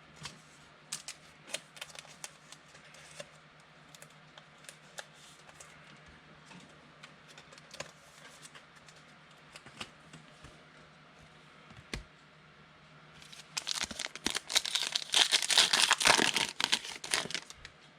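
Scattered light clicks and taps of cards being handled. About thirteen seconds in, a loud spell of crinkling and tearing as a foil trading-card pack wrapper is ripped open.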